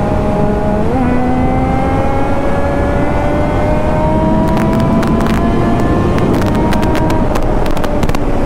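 Triumph Daytona 675 sport bike with an aftermarket exhaust, under way. Its engine note steps up about a second in, climbs slowly for several seconds, then eases off. Steady rushing noise runs underneath, and a scatter of sharp ticks comes in the second half.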